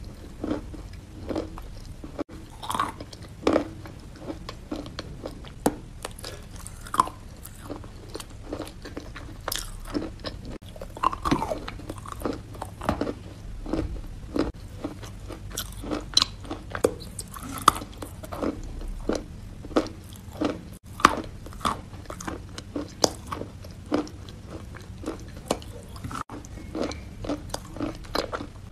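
A person biting and chewing wet sawn chalk: irregular soft crunches, roughly one or two a second, with a low steady hum underneath.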